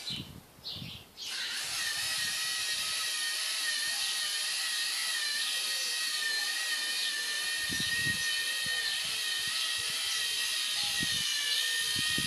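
Lego Mindstorms NXT servo motor whining through its gears as it drives the Lego Technic truck. The steady high whine starts about a second in and wavers slightly in pitch.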